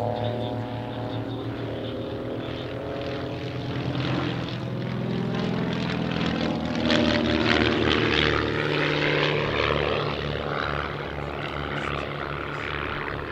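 Two Van's RV-8 propeller aircraft flying a close formation pass, their piston engines droning with the note sliding in pitch. The sound grows loudest just past halfway through, then eases off a little.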